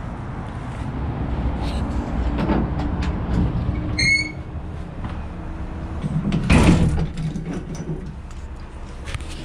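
Someone walking through a ship's steel watertight doorway, with clicks and handling noise over a low rumble. There is a brief high squeak about four seconds in and a loud knock about six and a half seconds in, from the heavy door and the steel underfoot.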